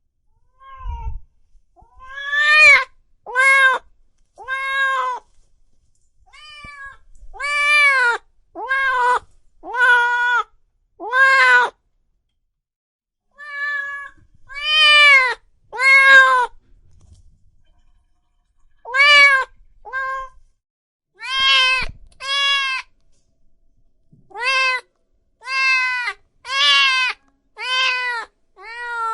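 Cat meowing over and over, about twenty separate meows, each rising and then falling in pitch, with short silent gaps between them.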